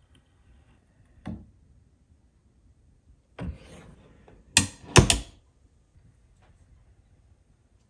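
Cabinet door being handled and shut: a soft knock about a second in, a short brushing sound, then two sharp clicks as the door closes against its catch, the second the loudest.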